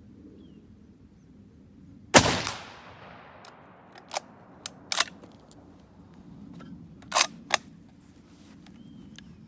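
A single .303 Lee Enfield No. 4 rifle shot about two seconds in, with its report dying away over about a second. It is followed by a string of sharp metallic clicks and clacks, the bolt being cycled to chamber the next round from the magazine.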